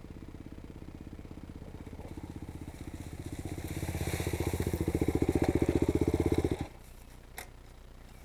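Honda XR400's single-cylinder four-stroke dirt-bike engine running as the bike rides down the hill toward the listener, growing louder. About six and a half seconds in it drops off sharply to a faint low hum, followed by a single click.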